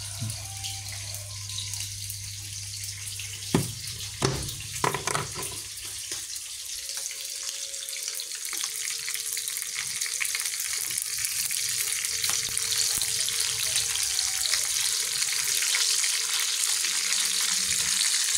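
Pieces of dried pangasius fish sizzling as they fry in oil in a small pan, a steady hiss that grows louder. A few sharp knocks about three and a half to five seconds in, and a low hum that stops about seven seconds in.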